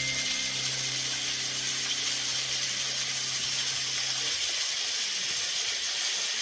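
Small waterfall splashing down a rock face: a steady, even rushing hiss of falling water.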